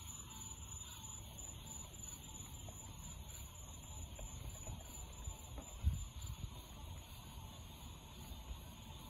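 Distant rumble of a Falcon 9 rocket's nine Merlin engines heard from miles away, a low uneven rumble with a cluster of louder crackles about six seconds in.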